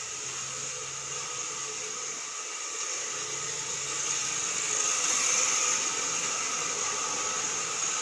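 Electric fan running indoors: a steady whir and hiss with a faint motor hum, growing louder about halfway through.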